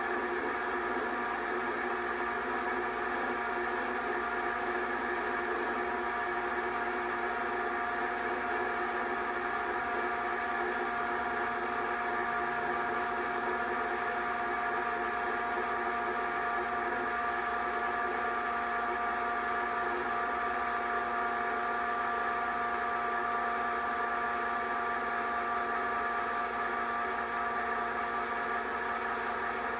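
Home-movie film projector running: a steady mechanical whir of motor and fan with several held tones.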